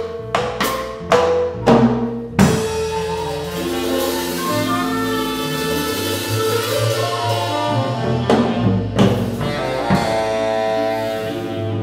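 Small jazz combo of clarinet, keyboard, upright bass and drum kit playing the closing bars of a tune: several sharp accented band hits with drum strikes, then a long held final chord over bass notes, with a few cymbal and drum strikes near the end.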